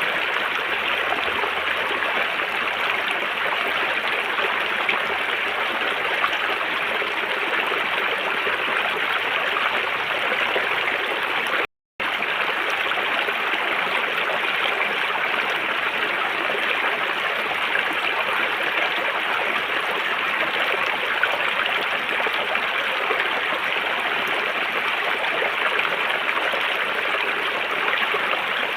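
River water flowing steadily, with a moment of silence about twelve seconds in.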